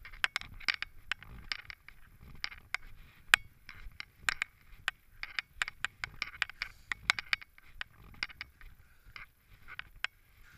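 Handling noise of a moving GoPro action camera and its mount. Many irregular sharp clicks and knocks, with short scuffing rustles in between.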